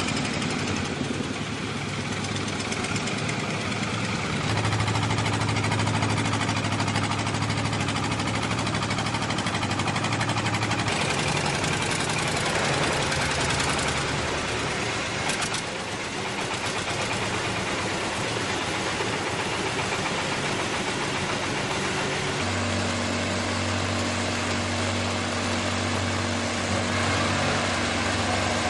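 QT4-20C concrete block making machine running: a steady mechanical drone whose low hum shifts to a new pitch and level several times as the machine moves through its moulding cycle, with a few clatters about halfway through.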